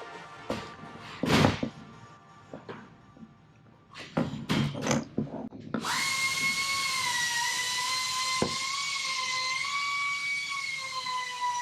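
A power tool in short bursts, then running steadily with a high whine from about six seconds in.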